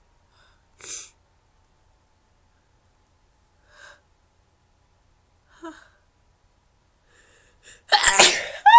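A woman's induced sneeze: after a few faint breaths, a loud noisy burst about eight seconds in, then a high-pitched "choo" that falls steadily in pitch.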